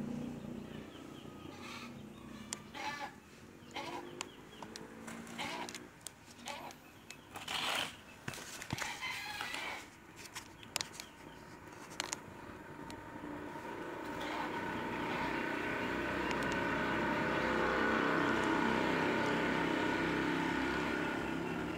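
Two puppies play-fighting, with scattered short yips, squeals and scuffles. About two-thirds of the way through, a steady motor drone swells up and holds.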